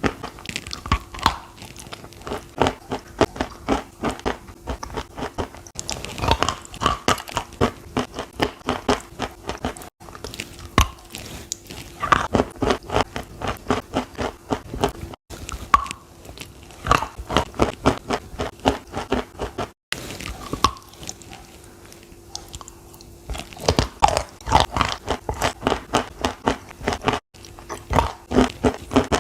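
Chalk dipped in chalk paste being bitten and chewed: runs of quick, crisp crunches with short pauses between. A faint steady hum sits underneath.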